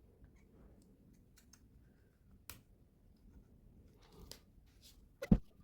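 Faint scattered clicks and taps of small hand tools working on the instrument-cluster circuit board as the LCD's pins are freed, with one sharper knock near the end.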